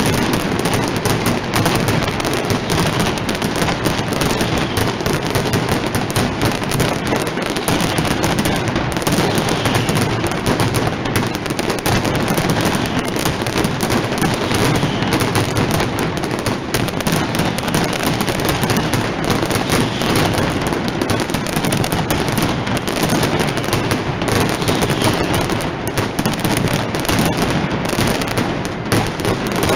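Mascletà firecrackers going off in a dense, unbroken barrage of rapid bangs, so close together that they merge into one continuous crackling din with no pauses.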